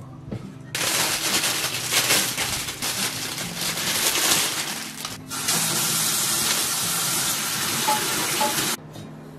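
Kitchen tap running, water splashing over green onions being rinsed in the sink. It comes on about a second in, dips briefly midway, and shuts off suddenly near the end.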